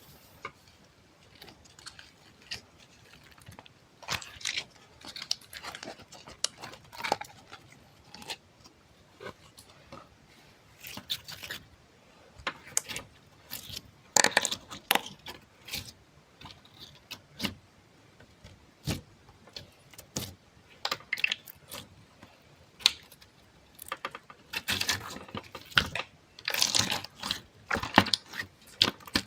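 Soft objects handled close to the microphone for ASMR: irregular soft clicks and crackles, growing busier and louder near the end.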